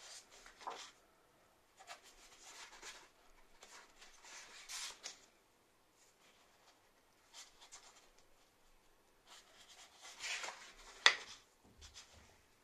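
Paper pages of a picture book being turned and brushed by a hand: faint rustles in several bouts, with one sharper tap a little before the end.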